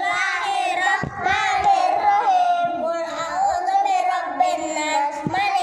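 A child's high voice chanting Quran recitation in Arabic, one melodic line that rises and falls with only brief breaks.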